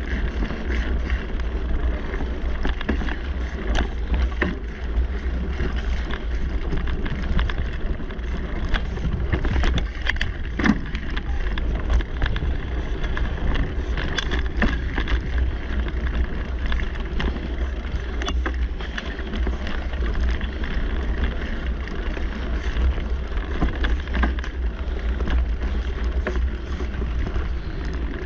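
Mountain bike riding fast along a dirt singletrack: steady wind rumble on the bike-mounted microphone and tyres rolling over packed dirt, with frequent small clicks and knocks over bumps in the trail.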